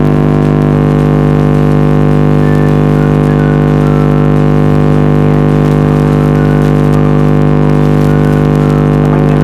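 A loud, steady droning hum made of many stacked, unchanging tones, with faint wavering higher tones drifting over it.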